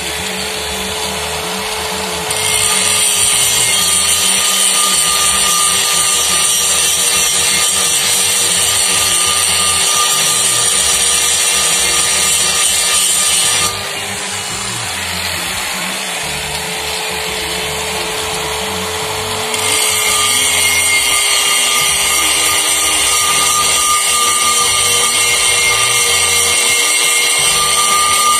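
Electric angle grinder running steadily with a constant motor whine, its disc worked against a Mahindra Bolero pickup's brake drum. The grind turns louder and harsher about two seconds in, eases about fourteen seconds in, and grows harsh again about twenty seconds in.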